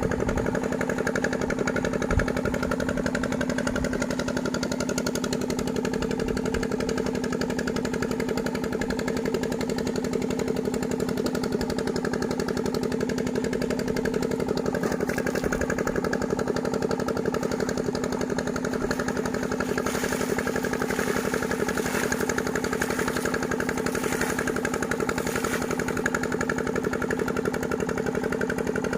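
An engine running steadily with a fast, even pulse, with a few short hissing bursts laid over it from about twenty seconds in.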